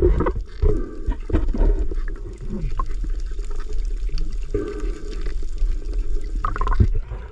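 Seawater heard from just under the surface: a steady, muffled low rushing and sloshing of water, with a few louder sloshes near the start.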